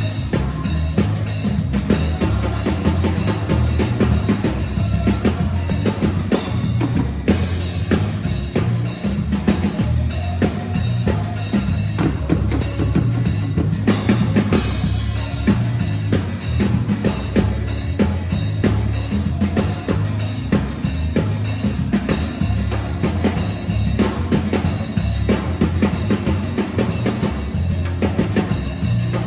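Music driven by a drum kit, with bass drum and snare hits over a heavy, stepping bass line.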